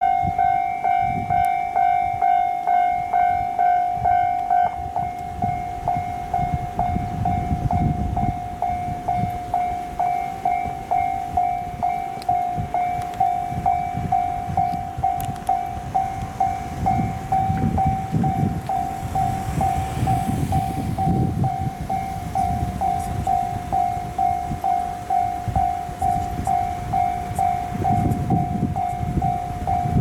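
Japanese railway level-crossing warning bell ringing, a single electronic ding repeating about twice a second, signalling an approaching train. A low rumbling noise comes and goes underneath.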